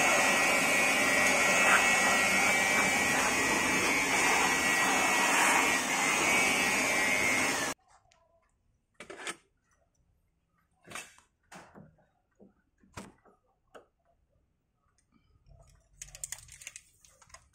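Handheld electric air blower running steadily with a whine as it blows dust off an LCD panel. It cuts off abruptly about eight seconds in, leaving near silence broken by a few faint clicks.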